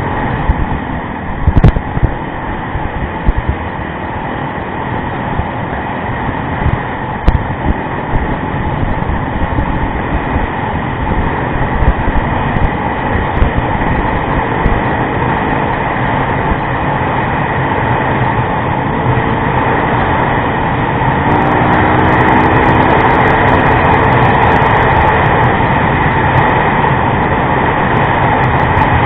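Onboard sound of a Yamaha rally motorcycle riding off-road: a dense rushing noise with the engine underneath and a few sharp knocks, growing louder about two-thirds of the way through, where the engine note can be heard rising and falling.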